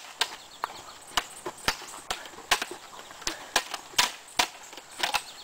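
Plastic toy swords clacking together in a mock sword fight: about a dozen sharp, separate knocks at an uneven pace of roughly two a second.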